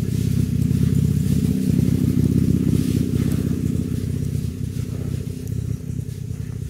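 An engine running steadily with an even low hum that grows fainter over the last couple of seconds, with faint scratching of gloved hands in dry soil.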